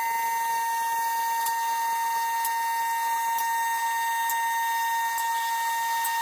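Electric-hydraulic power unit of a Titan mid-rise scissor lift running as it raises a car: a steady, high-pitched whine with a lower hum, and a light click about once a second.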